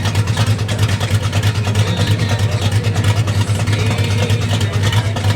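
Hot rod engine running at a steady idle close by: a loud, low, even rumble of rapid firing pulses.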